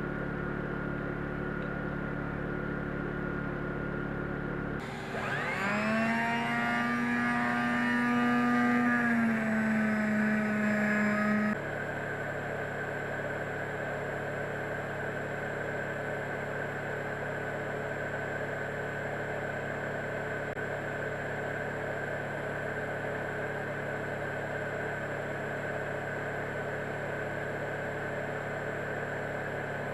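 A power drill's motor spins up about five seconds in, runs steadily for about six seconds with a slight drop in pitch, then cuts off. A steady hum fills the rest.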